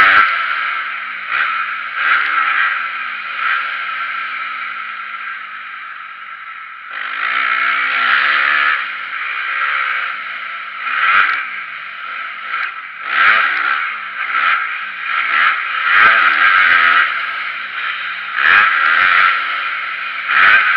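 Motocross dirt bike engine revving hard and dropping off as the throttle is opened and closed, easing to a quieter spell before surging again about seven seconds in. Sharp knocks cut in several times in the second half, from the bike hitting bumps and landing jumps.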